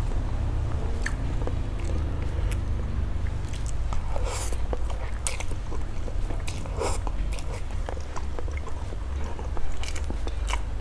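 Close-miked eating of spicy instant dry noodles with chopsticks: chewing and slurping with many short wet clicks and smacks, louder around four seconds in and again near seven seconds, over a steady low hum.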